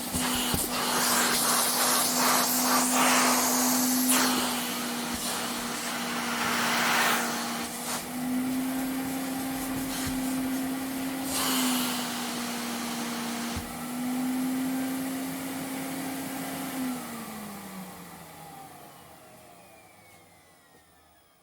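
Vacuum cleaner running, a steady motor hum under a rushing airflow hiss that swells and eases. About 17 seconds in it is switched off: the motor's pitch falls and the sound fades away as it spins down.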